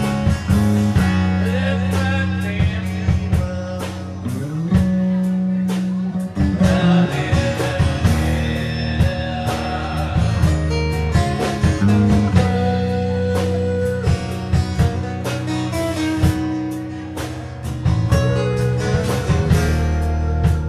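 Live band music: electric bass and two strummed acoustic guitars, with singing.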